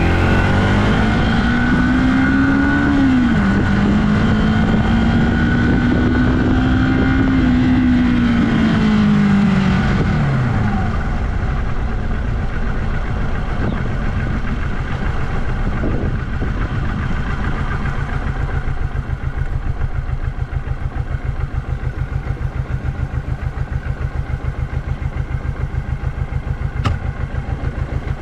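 1982 Yamaha XS400 Maxim's air-cooled parallel-twin engine revving up under acceleration, with a gear change about three seconds in, holding speed, then winding down as the bike slows around ten seconds in. It then settles into a steady, even idle.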